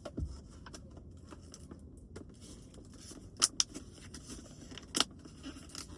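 Scattered clicks and crinkling as a cannabis package is handled and worked open, with two sharper clicks about three and a half and five seconds in, over a low steady rumble.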